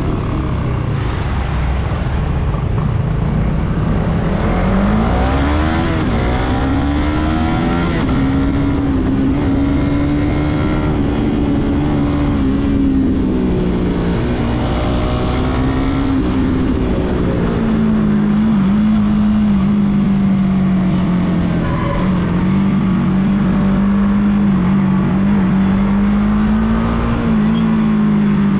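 Suzuki Raider R150 Fi's single-cylinder four-stroke engine running while riding, its note climbing as the bike accelerates about five seconds in, dipping and rising again midway, then holding a steadier, lower note for the last ten seconds. A steady rushing noise runs beneath it.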